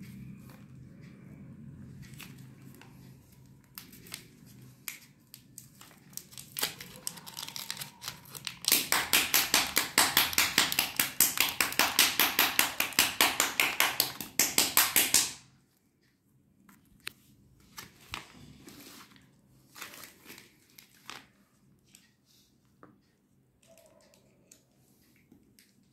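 Paper wrapper of a Lifebuoy soap bar being crinkled and torn off the bar. Scattered crinkles and ticks come first, then a loud run of rapid rasping strokes, about five a second, that lasts some six seconds and cuts off. Quieter handling ticks follow.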